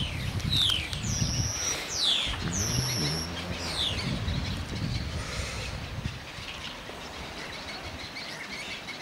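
Yellow-legged gull chicks peeping: about six thin, high whistled notes, most falling in pitch, in the first four seconds, then fainter calls. A low rumble runs beneath and eases after about six seconds.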